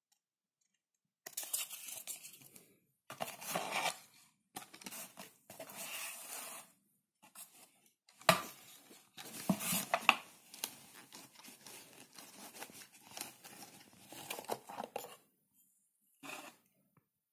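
Cardboard box, paper cards and a leather knife sheath being handled: irregular rustling, scraping and sliding, with two sharp knocks about a third and halfway through.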